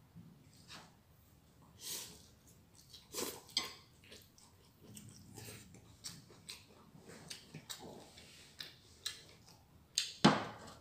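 A person eating: soft chewing and scattered small mouth and dish clicks, with one louder sharp clack or crunch about ten seconds in.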